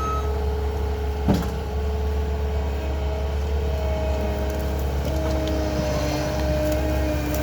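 Skid steer running steadily with a low engine hum and several whining tones that step up and down in pitch, and one sharp knock about a second in.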